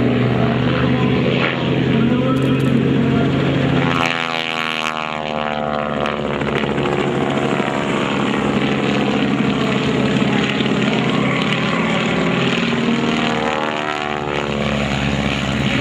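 Stearman PT-17 biplane's seven-cylinder radial engine and propeller droning through aerobatic manoeuvres. About four seconds in the low hum thins into a sweeping, phasing sound as the aircraft moves overhead and away, and it builds again near the end.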